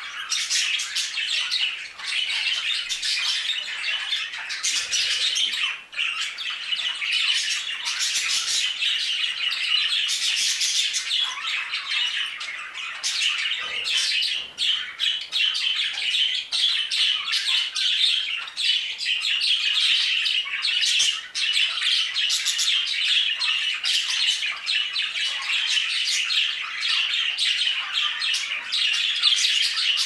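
A flock of budgerigars chattering without a break, many short calls and chirps overlapping.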